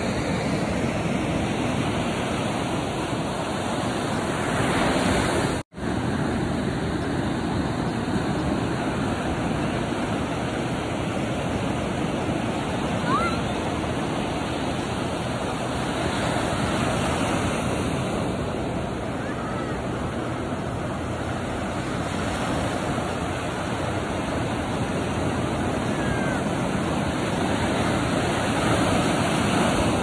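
Ocean surf breaking and washing up a sandy beach: a steady rush of waves, swelling and easing, that cuts out for an instant about six seconds in.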